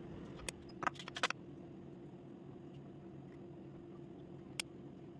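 Light sharp clicks of a fork against a glass of melted white chocolate as a coated biscuit ball is lifted out, a quick cluster of them about a second in and one more near the end, over a faint steady hum.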